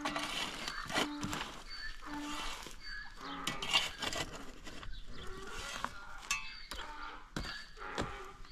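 Pickaxe and shovel striking and scraping dry, stony ground while a hole is dug, a string of sharp knocks and scrapes. A short pitched call repeats about once a second in the first half.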